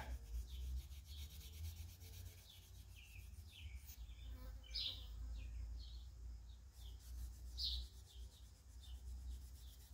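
Fine 0000 steel wool rubbed over a wooden knife handle in short, faint strokes, working to lighten stains in the wood.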